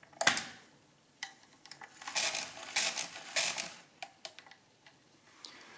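Schubert DRV pinwheel calculator's carriage being shifted by its spring-loaded shift buttons: a sharp clack just after the start as the carriage releases and snaps over, a few light ticks, then three metallic clattering runs about two to three and a half seconds in as the carriage steps along.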